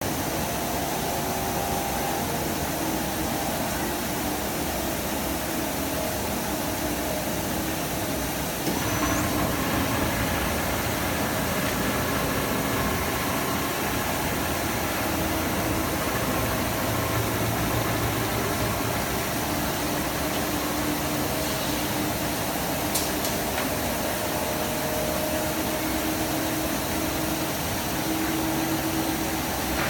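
HXE-13DLA copper rod breakdown wire drawing machine running steadily under test, a continuous mechanical hum and hiss with a few faint steady tones. The noise steps up slightly about nine seconds in and then holds.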